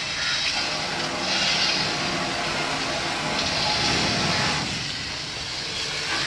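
Hose jet spraying water over a chemical road tanker's outlet valves, with rinse water pouring from the valves and splashing onto the wet ground. A steady rush of water that grows louder about a second in and again around four seconds in.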